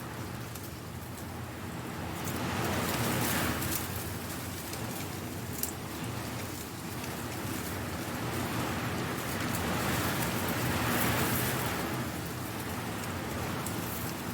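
Strong wind blowing through dry leaves, a dense crackling rustle that swells in gusts about two seconds in and again past the middle.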